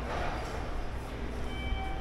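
Railway station ambience: a steady low rumble with a general hum of noise, and a faint thin high whine that comes in about halfway through.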